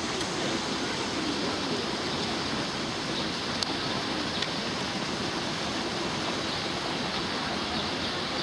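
Steady rushing of flowing water, even and unchanging, with two faint clicks a little before and after the middle.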